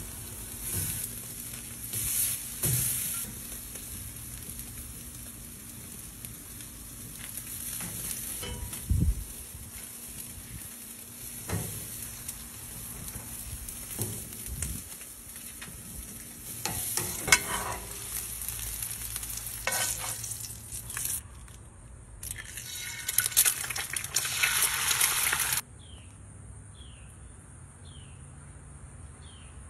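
Ribeye steaks sizzling on a charcoal grill grate, with a few sharp clicks and knocks as metal tongs turn them. The sizzle swells louder a few seconds before the end, then cuts off suddenly, leaving faint chirps repeating about once a second.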